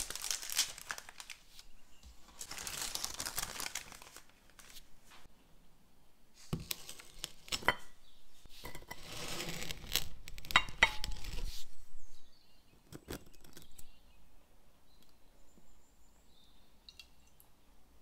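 Baking paper crinkling and rustling in several bursts as a sheet is laid over a serving plate and pressed into shape. The last several seconds hold only faint, light sounds.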